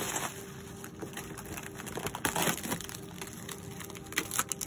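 Cardboard shipping box being opened by hand: flaps pulled and scraped open with crinkling, and several sharp snaps of cardboard about two seconds in and again near the end.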